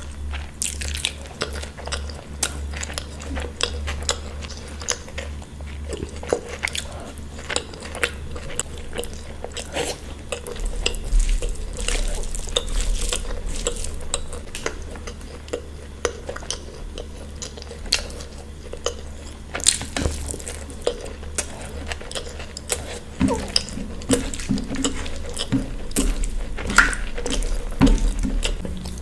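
Close-up eating sounds: irregular chewing and biting of food, with frequent small clicks and clinks of food and cutlery against a plate.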